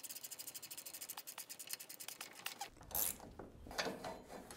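Ratchet wrench clicking rapidly and evenly as it turns the threaded rod of a bushing press tool, drawing the large rear swing-arm bushing out of the control arm. The clicking stops a little under three seconds in, followed by a knock and some scraping.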